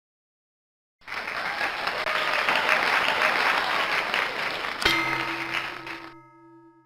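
Applause starts suddenly about a second in and fades away near the end. After a click, a steady held musical chord sets in over it for the last two seconds.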